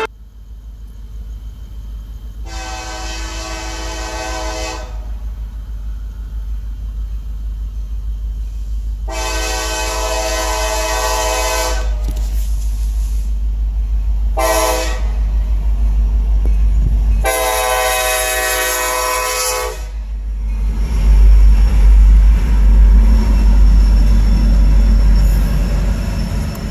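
Diesel freight locomotive's air horn sounding the grade-crossing signal, long, long, short, long, as the train approaches. Its engine rumble grows steadily louder, and about twenty seconds in the locomotive passes close by and the freight cars start rolling past.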